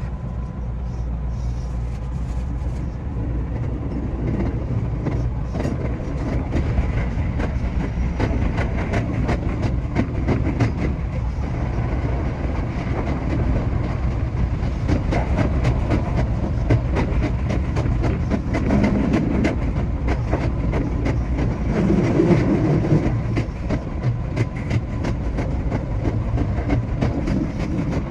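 JR West 227 series electric train running along the line: a steady low rumble with rapid clicks of the wheels over rail joints, getting a little louder about four seconds in.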